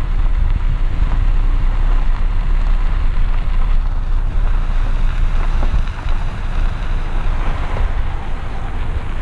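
Wind buffeting the microphone: a loud, steady rumble that flutters in the bass.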